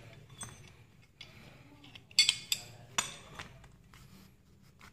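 Metal airgun receiver parts clicking and clinking against each other as a metal trigger cover plate is handled and fitted onto the receiver: several sharp clicks, the loudest about two seconds in and another at three seconds.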